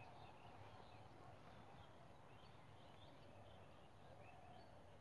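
Near silence: faint rural outdoor background with a few faint, brief distant bird calls.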